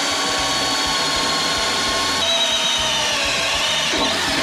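DeWalt cordless drill running at full speed, its bit boring into the thin sheet metal of an excavator's dozer blade: a steady whine that drops slightly in pitch about two seconds in and winds down at the end as the trigger is let go.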